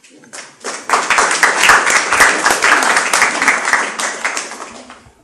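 Audience applauding: many hands clapping, building up about half a second in and dying away near the end.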